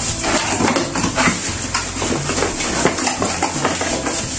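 A cardboard box being opened and unpacked: flaps and packaging clatter and a plastic bag rustles in quick short sounds, over upbeat background music.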